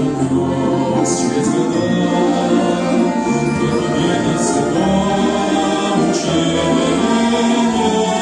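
Choir singing a Christian hymn with orchestral accompaniment, slow and sustained.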